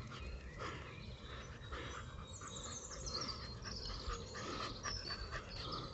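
A dog panting softly and steadily.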